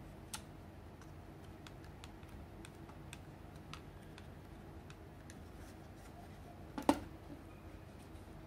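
Faint scattered clicks and ticks of fingers handling a Razer Viper Mini's plastic shell while pressing grip tape onto its sides, with one louder knock about seven seconds in as the mouse is set down on the desk. A low steady hum runs underneath.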